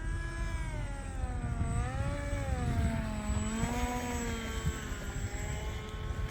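Electric motor and propeller of an E-flite ICON A5 RC seaplane whining, its pitch rising and falling repeatedly, over wind noise on the microphone.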